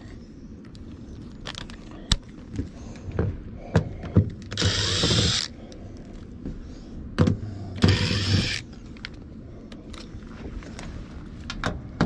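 Makita cordless impact driver hammering sheet-metal screws into an air handler's access panel, in two short bursts about four and eight seconds in, the first a little over a second long. Scattered clicks and knocks of the metal panel and screws being handled come between.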